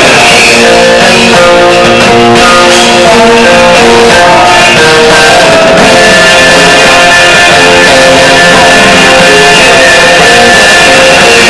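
Live rock band playing loud: electric guitars and bass over drums, the guitar line moving through a series of held notes.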